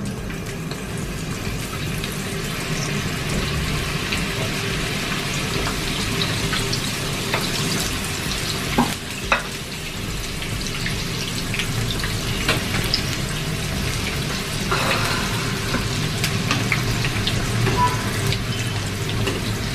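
Spring rolls deep-frying in hot oil: a steady sizzle, with two sharp clicks about nine seconds in.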